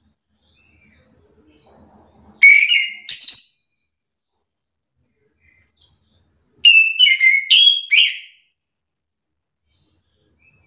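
Chestnut-capped thrush (anis kembang) singing loud, clear whistled phrases in two bursts. There is a short two-note phrase, the second note higher, about two and a half seconds in, then a quicker run of about five notes some four seconds later.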